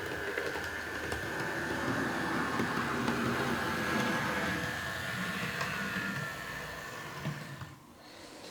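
Model class 740 diesel locomotive by MTB running on a test track, its small electric motor whining over the rumble of the wheels. The whine drops in pitch about six seconds in, and the running stops near the end.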